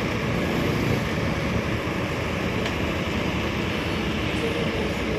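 Steady outdoor background noise: a low rumble with a hiss above it, no distinct events.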